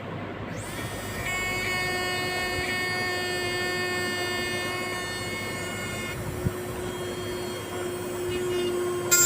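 Small high-speed rotary tool's motor running at a steady speed, giving an even whine that holds one pitch. Its higher overtones fall away about six seconds in, and a single short click comes soon after.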